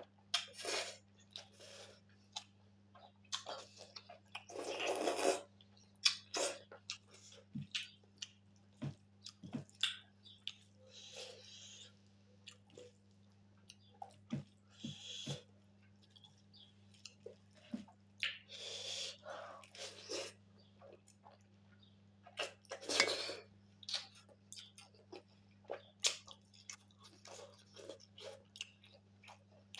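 Close-miked chewing and mouth sounds of someone eating pork and rice: irregular wet clicks and smacks, with a few louder breathy bursts, over a faint steady hum.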